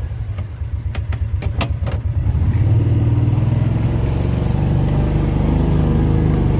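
A vehicle engine chugging at low revs with a fast, pulsing beat and a few sharp clicks. About two and a half seconds in it picks up and runs louder and steadily.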